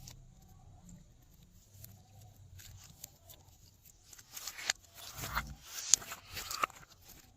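Glossy slime being worked by hand, giving sticky clicks and crackling pops. They are sparse at first and grow louder and denser from about four seconds in.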